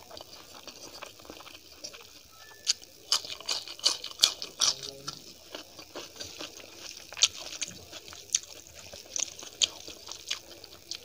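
A person chewing a mouthful of rice and dal, with many short sharp mouth clicks and crackles scattered through, thickest about three to five seconds in.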